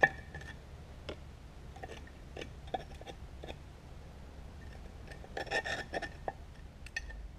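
Metal clinks and light rubbing from handling a dirty brake housing off an IH 1066 tractor on a workbench. A sharp clink with a short ring comes right at the start, and a quick cluster of clinks follows about five to six seconds in.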